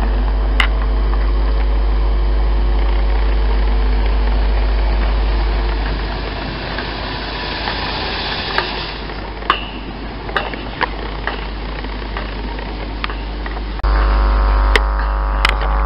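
ScotRail Class 318 electric multiple unit running into the platform, a steady electric hum and rumble that eases off about six seconds in as it comes to a stand. While it stands there are a few sharp clicks and knocks.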